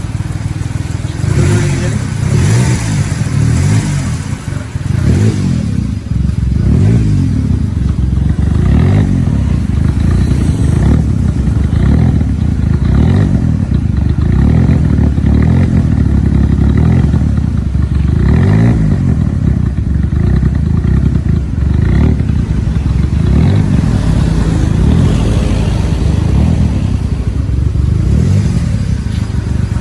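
Turbocharged Perodua Kancil's small engine being driven hard, its pitch climbing and then dropping again and again as it revs up through the gears and backs off.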